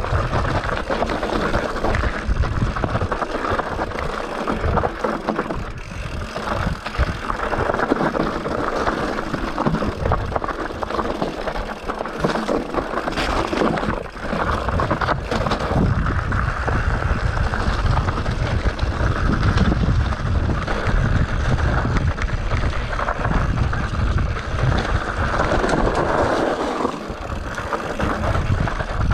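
Mountain bike riding down a dirt trail: wind buffeting the camera microphone over the tyre noise, with a few sharp knocks from the bike on rough ground.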